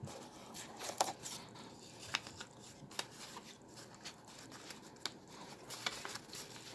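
Stiff paper and cardstock rustling and rubbing, with scattered light clicks and taps, as the flaps and pockets of a handmade paper explosion box are handled and opened.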